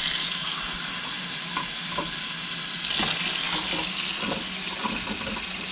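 Hot water running steadily from a tap while a piglet's feeding bottle is filled, with a few faint clicks of the bottle being handled.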